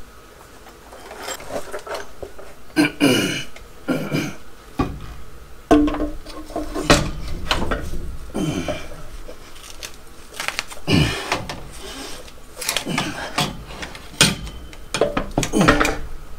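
A man grunting and groaning with effort as he heaves a heavy Tremec TKO 600 five-speed transmission overhead into place, mixed with the metal clunks and knocks of the gearbox case bumping and scraping against the car's underside.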